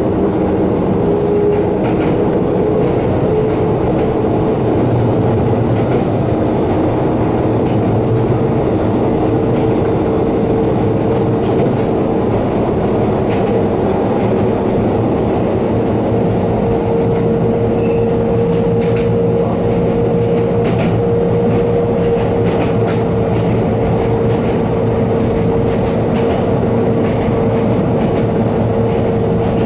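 Kobe Electric Railway electric train climbing a steep grade, its traction motors groaning under load as a steady whine that creeps slightly higher in pitch over the first half, over the constant running noise of the wheels on the rails.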